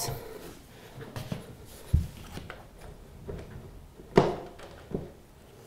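Sliding wardrobe door being set into its floor rail by hand at its bottom edge: faint rubbing, a low thump about two seconds in, a sharp knock a little after four seconds and a smaller knock just before the end.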